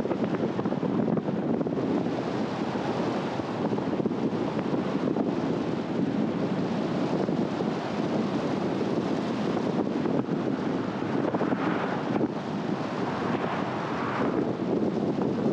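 Steady road and wind noise of a car driving along: an even rumbling hiss of tyres and air, with no engine note standing out.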